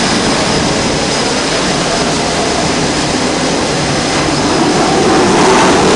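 Navy jet engines on an aircraft carrier's flight deck running, a loud steady noise that swells slightly near the end.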